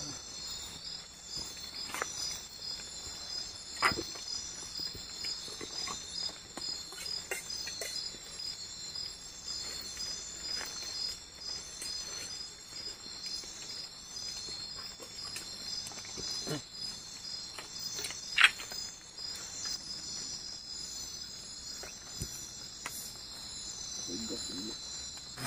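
Rainforest insects chirring steadily in a high, pulsing band, with a few scattered sharp knocks and clicks; the loudest knock comes about eighteen seconds in.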